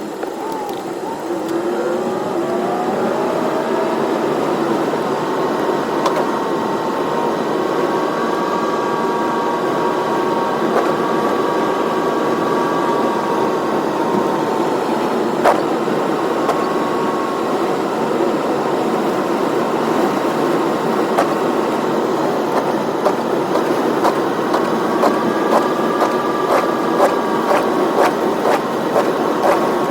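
Car engine and drivetrain speeding up, the pitch rising over the first few seconds, then cruising at a steady hum with road noise. Sharp ticks come more and more often over the last several seconds.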